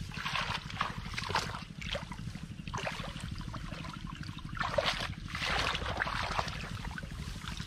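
Hands splashing and sloshing through shallow muddy water while feeling for fish. The swishes come irregularly, with a busier stretch about five seconds in, over a steady low rumble.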